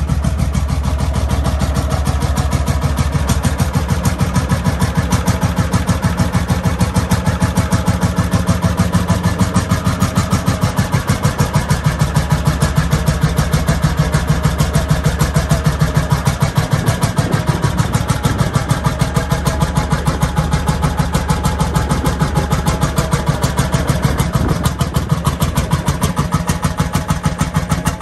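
1952 Landini L35 hot-bulb tractor's single-cylinder two-stroke engine idling with a slow, steady, even beat.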